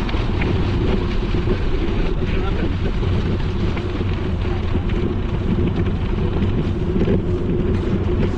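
Steady wind rumble on a bike-mounted GoPro's microphone while riding, mixed with bicycle tyres rolling over a dirt path.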